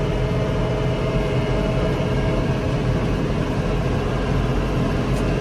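Farm tractor driving along a road, its engine running steadily, heard from inside the cab.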